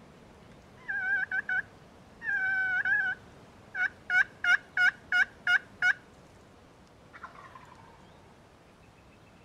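Turkey yelping: a few short notes, then a couple of longer drawn-out yelps, then a run of seven sharp yelps at about three a second.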